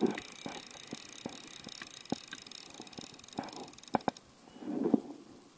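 River water sloshing and lapping close by, with scattered small clicks and taps from handling the rod; two sharp clicks come close together about four seconds in, followed by a soft swell of sloshing.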